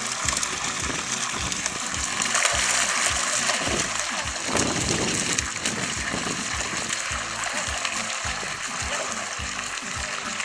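Background music with a steady beat, mixed with splashing water.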